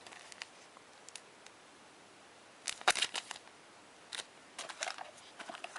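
Short crinkling and clicking handling noises from packaging and accessories being taken out of a box, beginning a little under three seconds in and coming in several brief bursts.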